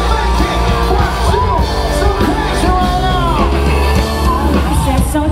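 Live band playing, a singer's voice gliding over a heavy bass.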